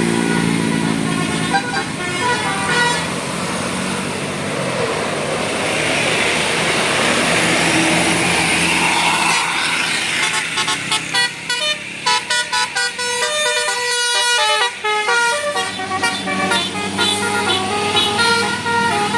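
Bus telolet horn, a Basuri multi-tone air horn, playing a fast melody of short stepped notes through the second half. Bus engine and road noise swell and fade under it in the first half.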